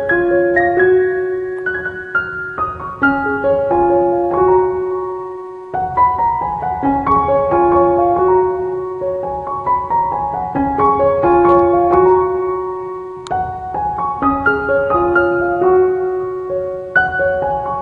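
Background piano music: a gentle repeating phrase of held notes over a soft low accompaniment.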